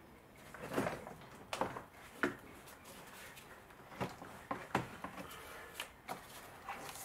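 A VW Golf Mk5's plastic front carrier panel is being pulled free. It gives a series of hard knocks and scrapes against the radiator and frame, with a handful of sharp clunks spread over several seconds.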